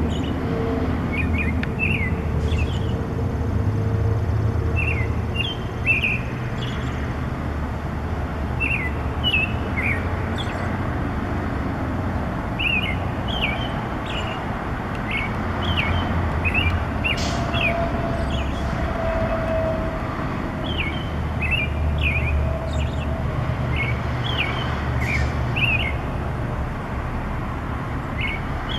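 A songbird singing short, clear chirping notes in quick little phrases with pauses between them, over a steady low rumble.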